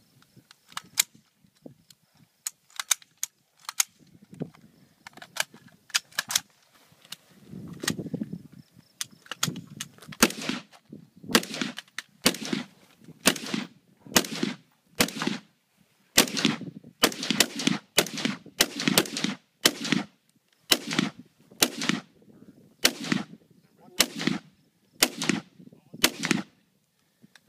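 Sharp metallic clicks and snaps of AR-15 carbines being put back together, then, from about ten seconds in, two rifles fired from prone in a steady string of some two dozen shots, one to two a second, each trailing off briefly.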